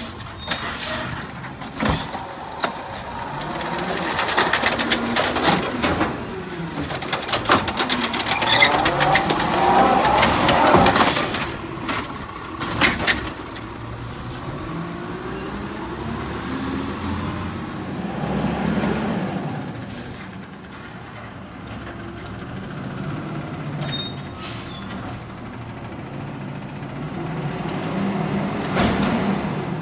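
Natural-gas automated side-loader garbage truck at work: the engine runs and revs up as the hydraulic arm cycles, with a long stretch of knocking and clattering as a cart is lifted and dumped into the hopper. Short air-brake hisses come near the start and again about two-thirds of the way through.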